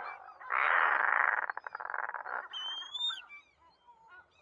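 Razorbill calling its chick: a loud, harsh rasping call lasting about two seconds, followed by softer call fragments and a thin high whistle that rises and then falls, about three seconds in.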